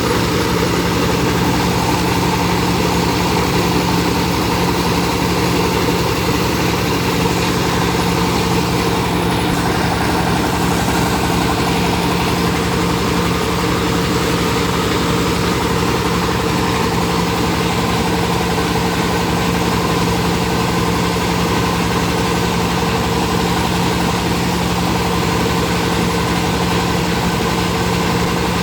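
Rice milling machine running steadily: a constant mechanical drone with a steady hum.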